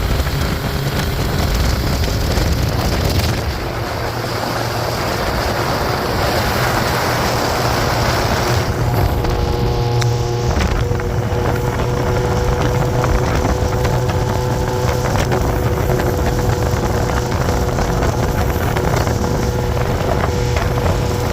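Motorcycle running steadily at road speed, its engine hum mixed with a steady rush of wind over the microphone.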